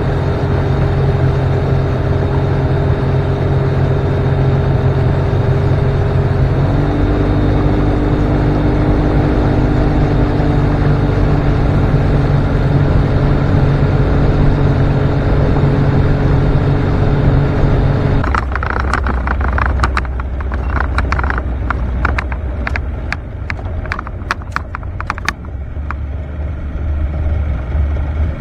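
Boat's outboard motor running under way, its note shifting slightly about seven seconds in, then throttled back to a lower rumble about eighteen seconds in as the boat slows. A quick run of sharp clicks and knocks follows for several seconds.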